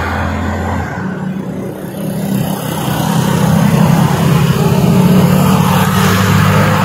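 Road traffic on a multi-lane highway: a steady low engine hum and tyre noise of passing vehicles, swelling about halfway through as traffic goes by.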